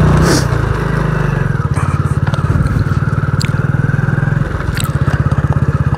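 Motorcycle engine running with a steady, rapid exhaust pulse while being ridden, with a few sharp clicks or knocks over it.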